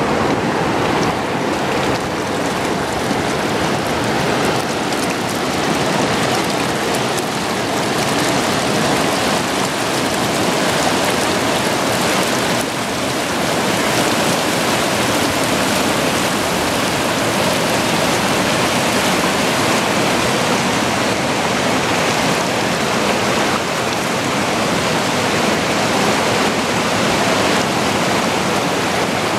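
Whitewater rapids of the Yellowstone River rushing over and around boulders, a steady, unbroken rush of water.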